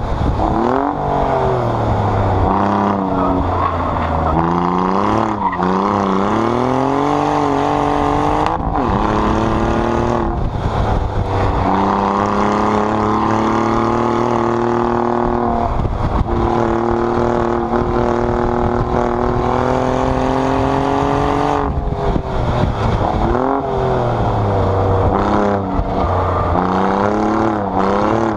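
Alfa Romeo Giulia Quadrifoglio's 2.9-litre twin-turbo V6 exhaust under hard driving, its pitch rising through each gear and dropping sharply at the shifts and lifts, about half a dozen times. Near the middle it holds a long, nearly steady pull of eight or nine seconds.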